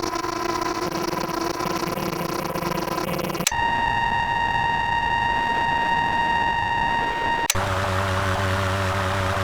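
Distorted electronic static loops, one after another, switching abruptly twice: crackling static with faint tones, then a steady high-pitched whine over static, then hiss over a low hum with wavering tones.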